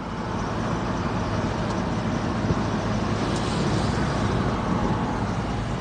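Steady car engine and road noise heard from inside a moving car, a low hum under an even rush of tyre and wind noise.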